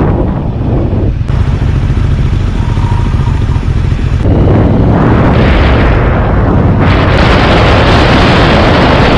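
Motorcycle engine running while the bike is ridden, heard from a camera mounted on the bike, with wind rushing over the microphone. The wind noise is lighter in the first few seconds, then rises from about halfway and is loud near the end as the bike picks up speed.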